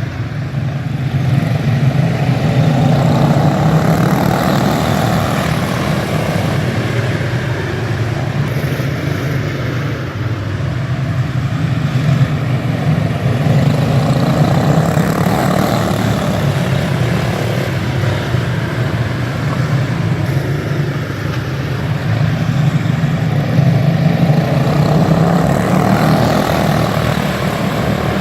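A pack of racing go-karts with Briggs & Stratton Animal single-cylinder engines running at speed, the engine note swelling and fading as the karts come past and move away.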